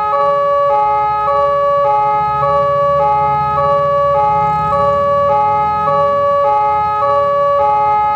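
Police siren sounding a two-tone hi-lo pattern, switching between a higher and a lower pitch about every half second, over a low rumble of vehicle engines.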